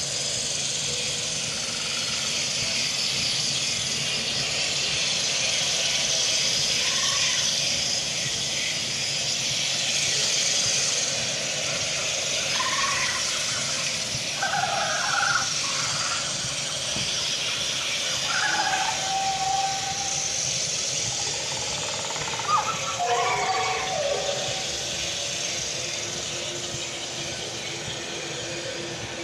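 Outdoor walking ambience: a steady hiss throughout, with a few brief distant voices or calls in the middle stretch.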